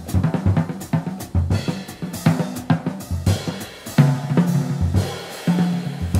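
Jazz drum kit played with sticks, busy snare, cymbal and bass-drum strokes, over changing low double-bass notes.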